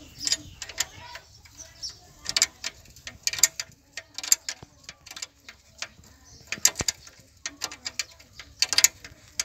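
Irregular sharp metal clinks and ticks of a steel spanner working a bolt on a Massey Ferguson tractor's crown wheel and pinion housing. They come in uneven clusters about once a second.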